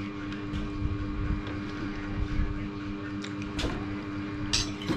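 Eating sounds: a metal spoon clicking and scraping in a bowl while scooping soup, with chewing, and a short sharp scrape near the end. Under it runs a steady low hum.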